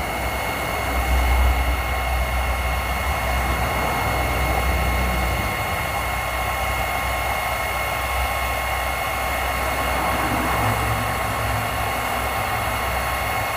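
Electric heat gun running steadily: a constant rush of blown air with a faint, even motor whine, as it heats the bottom of a can of thickened PVC solvent cement to make it liquid again.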